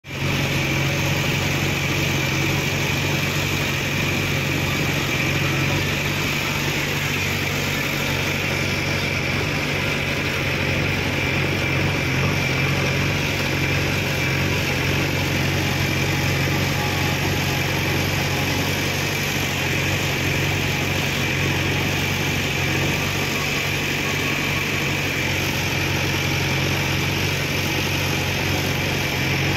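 Diesel engine of a JCB 3DX backhoe loader idling steadily, an even low hum with no revving.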